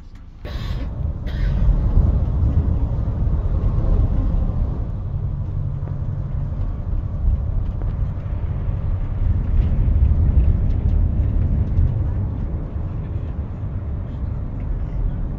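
Steady low rumble of road and engine noise inside a moving coach, starting abruptly about half a second in.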